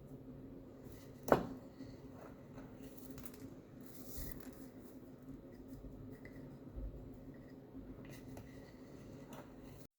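Quiet handling sounds: faint rustles and light ticks over a steady low hum, with one sharp click about a second in.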